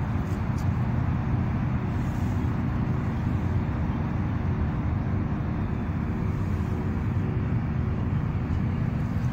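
Steady low engine rumble with a constant hum under it, unchanging throughout.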